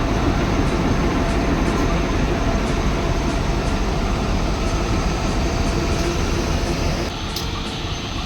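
Pasundan passenger train running on the rails: a steady, loud rumble of the moving train, shifting a little near the end.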